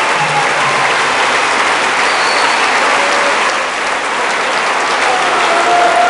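A large crowd applauding: many people clapping in a dense, steady patter.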